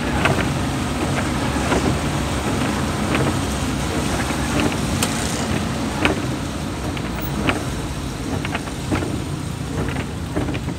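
A vehicle driving on a wet road, heard from inside the cabin: steady low engine and tyre rumble, with scattered sharp taps at irregular intervals.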